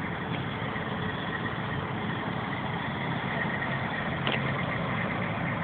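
Idling truck engines giving a steady low rumble.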